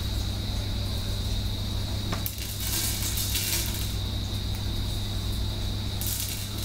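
Cloth and small objects handled on a glass-topped table: rustling with light clicks, a longer stretch about two seconds in and a short one near the end, over a steady low hum.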